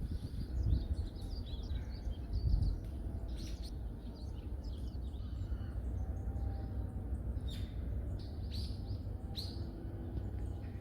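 Small birds chirping in a forest: many short high calls, with a few quick, sharp downward-sweeping notes in the second half. A steady low rumble runs underneath, with a few dull low thumps in the first few seconds.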